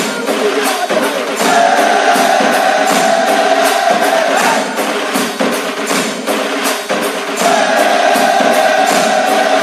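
Background music with a steady percussion beat; a long held melody line comes in about a second and a half in, drops out midway and returns near the end.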